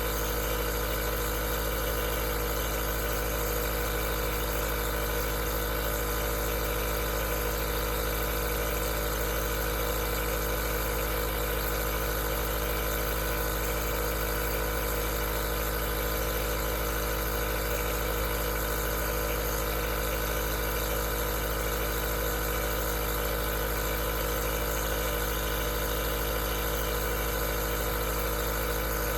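Aerosol nebulizer running steadily: an even motor hum made of several constant tones, over a hiss.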